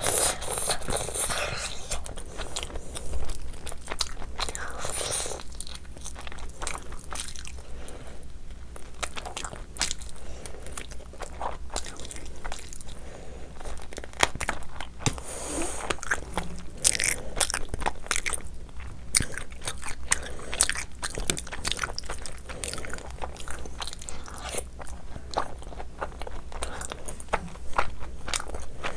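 A person biting and chewing curried chicken wings, with many quick sharp clicks throughout.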